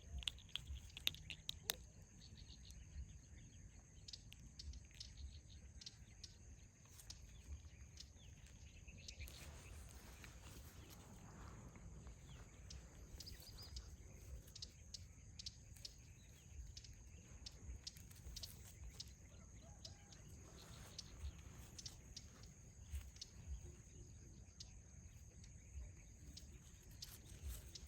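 Faint ambient noise: a steady high hiss with scattered small clicks and taps throughout.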